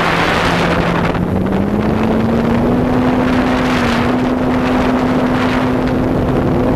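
Motor and propeller of a radio-controlled model Cessna heard from onboard, a steady drone that rises in pitch about a second in as the throttle opens, then holds. Heavy wind rush on the onboard microphone runs under it.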